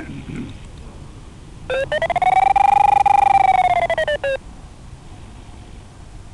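Sailplane variometer tone relayed over a 433 MHz FM radio link and played from a handheld UHF transceiver: a beeping electronic tone starts about two seconds in, glides up in pitch, holds steady for about a second, then glides back down and cuts off, chopped into quick beeps as it rises and falls. A steady radio hiss runs beneath it. The tone's pitch follows the glider's rate of climb or sink.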